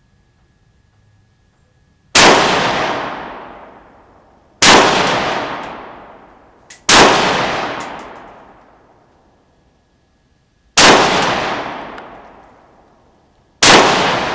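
Five single shots from a Rock River Arms CAR-15 (AR-15) semi-automatic rifle fired from a bench, spaced unevenly about two to four seconds apart. Each report echoes under the shooting shed's roof and dies away over a couple of seconds.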